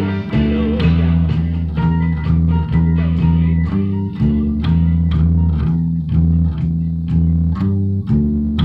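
Electric bass guitar playing a driving rock bass line of steady, repeated low notes along with a full band recording with drums and keys. It closes on a final accented hit right at the end.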